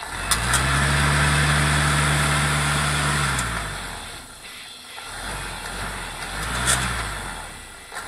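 Homemade siren rotor cut from a soda can, spun by a small 12-volt printer motor with no stator fitted: a whirring rush of air over a low motor hum. It starts abruptly, winds down after about three seconds, then runs again more weakly until near the end.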